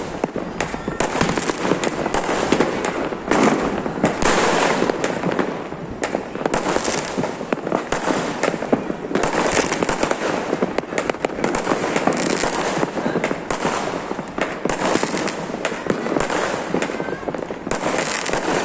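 Fireworks going off without a break: a dense, continuous crackle packed with many sharp bangs and pops.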